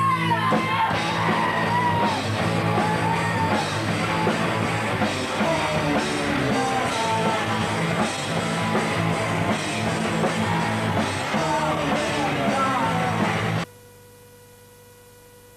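Loud punk rock with guitar and yelled singing, cutting off suddenly near the end and leaving a faint steady hum.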